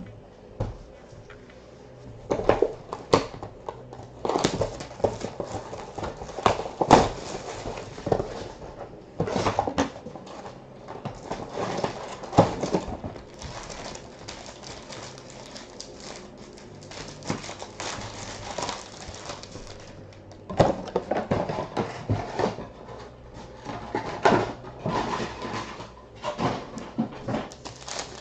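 Foil trading-card pack wrappers being ripped open and crinkled by hand, in bursts of crackling with short pauses between them.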